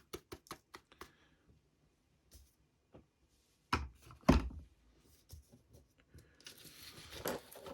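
Quick light taps for about the first second, as loose flock is knocked off a model base. Two heavier thumps come a little before halfway, and a rustling scrape near the end.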